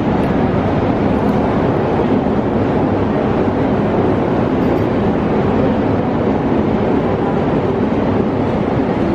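Steady, loud noise inside an MTR Tsuen Wan Line train carriage, with no separate knocks or events.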